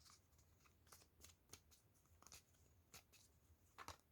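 Faint, scattered clicks and rustles of tarot cards being handled and laid out, with near silence between them.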